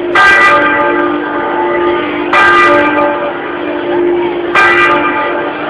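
Church bell swung in its tower (Italian 'a slancio' swing ringing). The clapper strikes three times, about two seconds apart, and each stroke rings on into the next.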